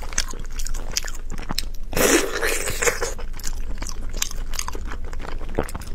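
Close-miked chewing of braised pork knuckle: wet smacking and clicking of the mouth, with a longer, louder slurping burst about two seconds in.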